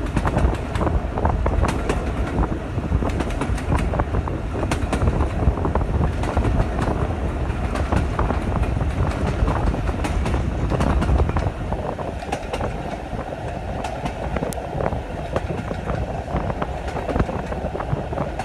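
A heritage passenger train's coaches running along the track, heard from an open carriage window: a steady low rumble of wheels on rail with scattered clicks. The rumble eases a little about two-thirds of the way through.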